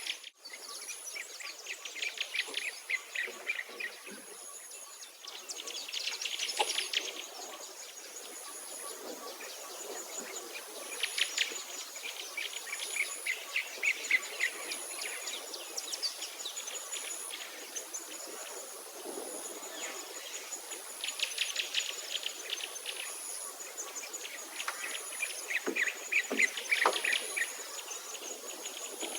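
Outdoor chorus of songbirds repeating fast trilled songs every few seconds, over a thin, high insect buzz that switches on and off.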